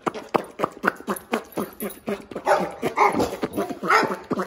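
A dog barking and yipping rapidly, several short barks a second, with the loudest barks about three and four seconds in.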